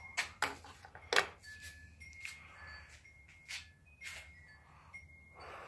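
A series of sharp clicks and knocks from items or the phone being handled, with faint short steady high-pitched tones that come and go behind them.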